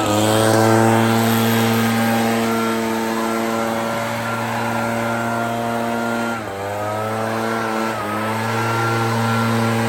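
Echo PB-9010 two-stroke backpack blower running at high throttle, blowing snow. The engine note stays steady, then dips and picks back up briefly twice near the end as the throttle is eased off and opened again.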